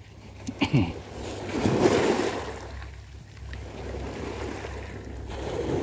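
Small waves washing up and drawing back over a pebble shore, swelling twice, with a few brief knocks of handling close to the microphone about half a second in.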